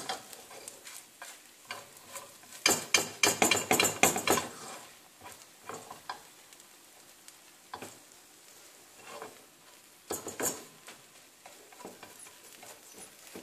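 Silicone spatula scraping and tapping against a nonstick frying pan while folding an omelette, over a faint sizzle of frying. A busy run of scrapes about three seconds in, then occasional single scrapes.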